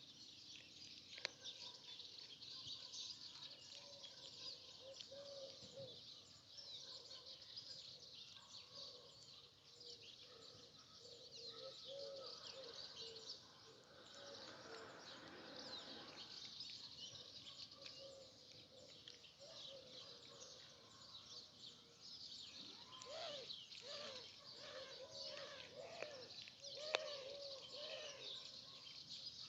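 Faint chorus of many small birds chirping and twittering throughout, with repeated low cooing calls, busiest in the second half. Two sharp clicks, one about a second in and one near the end, stand out above it.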